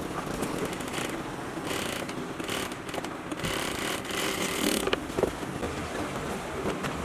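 Irregular rustling and scraping with a few light knocks, from hands-on upholstery work on a chair.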